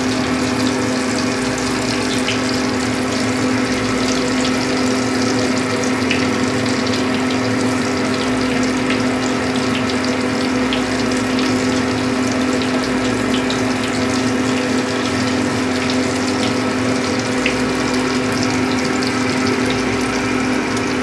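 Chicken boras frying in hot oil in a kadai: a steady sizzle with small crackling pops scattered through it, over a steady low hum.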